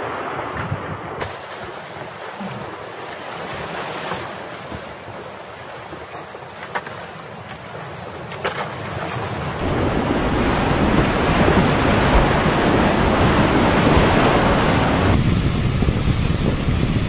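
Rushing glacial meltwater mixed with wind on the microphone: a steady hiss that turns abruptly louder and heavier about ten seconds in.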